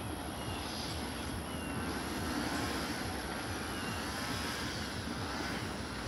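Manifest freight train rolling past: a steady rumble of wheels on rail with a faint wavering whine.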